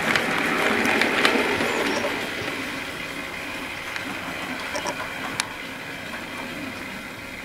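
Model railway train running on the layout track: motor hum and wheels clicking over the rail joints, fading steadily as it pulls away, with a single sharp click about five seconds in.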